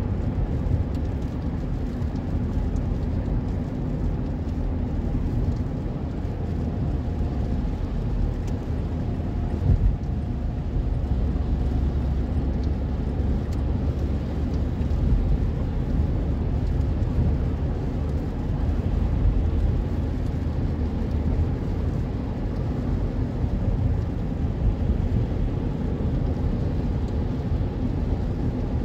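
Steady low rumble of tyres and engine heard inside a moving car on a wet highway, with faint taps of rain on the windscreen. A brief louder knock comes about ten seconds in.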